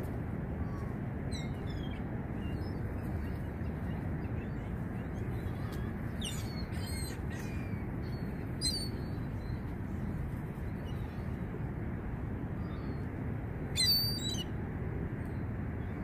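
Ring-billed gulls giving short, high-pitched calls now and then, the loudest cluster about fourteen seconds in, over a steady low rumble of wind and harbor noise.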